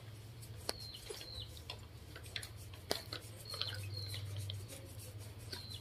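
Baby monkey giving short, high squeaks, one after another, each dropping in pitch at the end, while it is rubbed dry in a towel. A steady low hum runs underneath.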